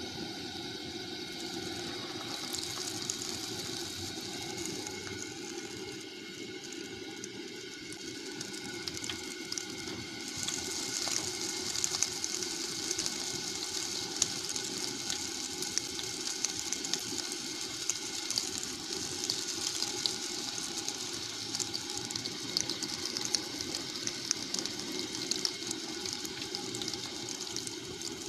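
Battered shrimp and fish frying in hot oil in a disco, a steady sizzle with small sharp crackles, getting louder about two seconds in and again about ten seconds in.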